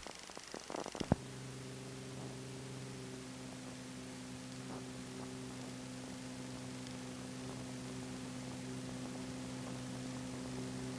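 Steady electrical mains hum over a low hiss, with a few clicks and pops in the first second or so.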